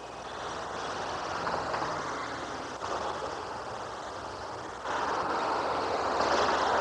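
City street noise: a steady rushing roar with no clear tone, shifting abruptly a few times and loudest from about five seconds in.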